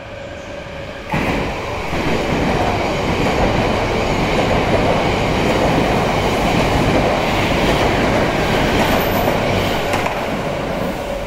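Yamagata Shinkansen train passing slowly through a station without stopping: loud rumble and clatter of its wheels on the rails. The sound rises sharply about a second in, stays loud, and begins to ease off near the end.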